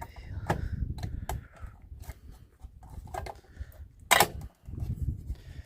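Light clicks and knocks of a Philips car radio cassette unit's casing being handled and pressed back together, the cover not yet sitting square, with one loud sharp click about four seconds in, over low rumbling handling noise.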